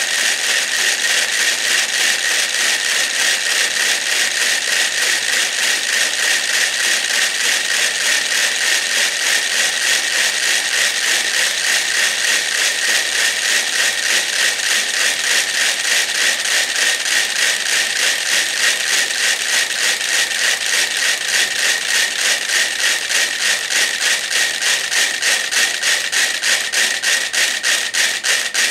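About a hundred mechanical metronomes ticking together on a swinging suspended platform. The ticks start as a dense rattling clatter and gather into a clearer, evenly spaced common beat over the later part: the metronomes are falling into sync through the platform's motion.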